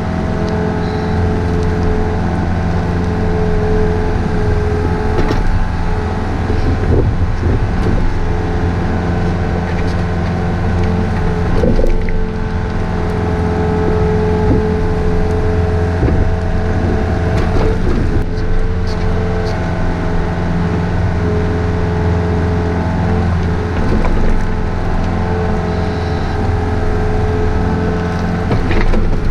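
Takeuchi TB153 compact excavator's engine running steadily at working speed, with scattered knocks and scrapes from the digging.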